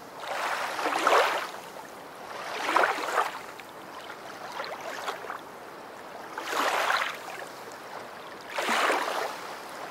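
Sea surf washing in and drawing back, one surge of waves about every two seconds.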